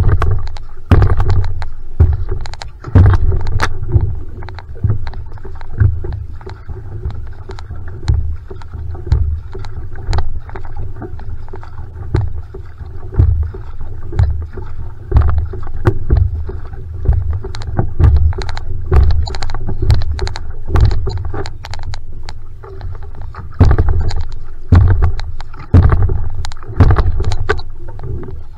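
Single outrigger canoe (va'a) paddled at a steady stroke rate: each stroke brings a splash of the blade and a deep rush of water along the hull, about once a second.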